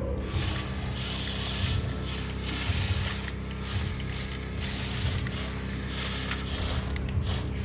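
Small electric motors and plastic gearing of a radio-controlled model excavator whirring, with bursts of scraping and a few clicks. A low, even beat sits underneath, about once every second and a bit.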